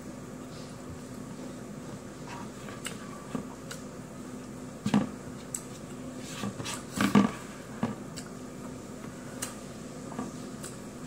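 Chewing and small mouth clicks, with fingers picking scraps of food off a plate, scattered light clicks and a couple of louder brief sounds about five and seven seconds in, over a steady low hum in the room.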